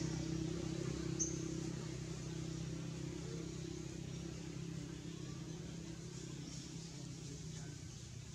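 A steady low drone of a running motor, with one short high chirp about a second in.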